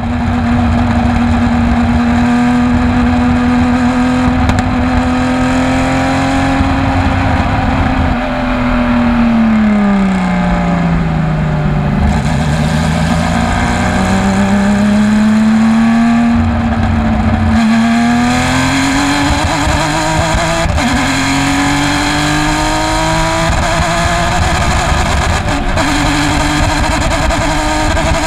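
Porsche race car engine running under load: its note holds steady, drops as the car slows about ten seconds in, then climbs steadily as it accelerates again. The engine is suffering a bad misfire.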